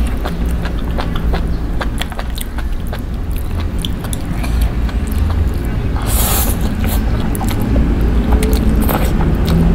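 Close-miked eating of spicy instant noodles: wet mouth and chewing clicks and chopsticks working the noodles, with a loud slurp of noodles about six seconds in and a shorter one near the end. A steady low rumble runs underneath.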